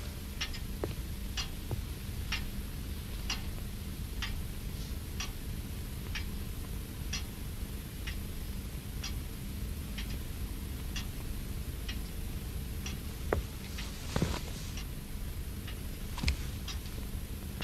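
Clock ticking slowly and evenly, about one tick a second, over a low steady hum, with a short louder noise about fourteen seconds in.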